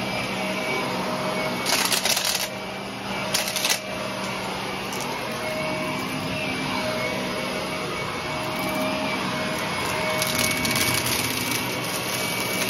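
Shark upright vacuum cleaner running steadily over carpet, its motor holding a steady whine. Short, loud crunching rattles come in three bursts, about two seconds in, around three and a half seconds, and again for about a second near ten seconds, as debris is sucked up.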